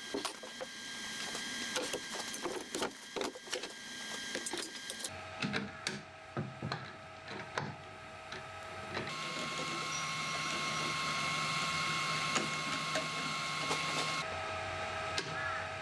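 Wood lathe running steadily, its motor giving several steady tones, with irregular scrapes and clicks from work on the spinning pine. The motor's pitch and tone shift abruptly about five, nine and fourteen seconds in.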